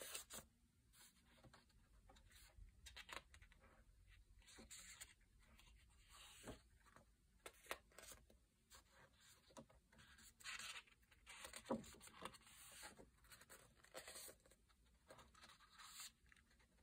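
Faint rustling of thick coloring-book pages being turned and smoothed by hand: a series of soft paper swishes and brushes, with a few light ticks.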